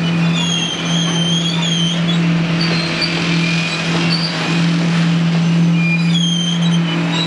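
Union Pacific double-stack intermodal well cars rolling past close by, with a steady rumble of wheels on rail and a constant low hum. High-pitched wheel squeal comes in for a second or two at the start and again near the end.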